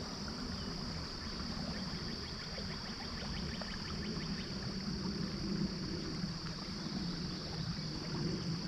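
Shallow river riffle flowing and lapping around a wading angler, a steady low rushing with small splashy ticks. A steady high-pitched hiss runs under it throughout.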